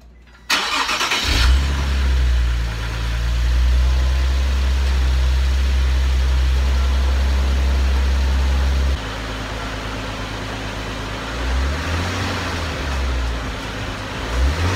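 Nissan 370Z Nismo's 3.7-litre VQ37VHR V6 cranked and starting, its first start with a freshly fitted Stillen Gen 3 cold air intake, then running at a raised idle. The idle drops about nine seconds in, and the revs rise and fall briefly a couple of times near the end.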